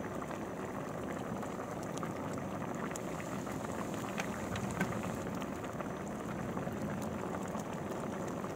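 A pan of fish in a creamy sauce simmering: steady bubbling with many small pops.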